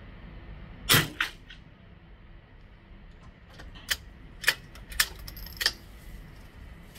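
A single shot from a suppressed Victrix .22 LR bolt-action rifle, a sharp crack about a second in. About three seconds later the bolt is worked with four sharp metallic clicks, ejecting the spent case and chambering the next round.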